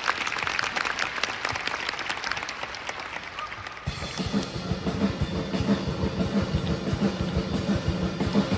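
Marching band percussion playing: light, rapid taps at first, then about four seconds in the bass drums and full drum section come in with a steady, heavy beat.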